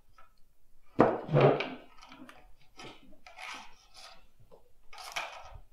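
A chair scraping back from a table, sudden and loud about a second in, then several shorter scuffing and rubbing sounds as someone gets up.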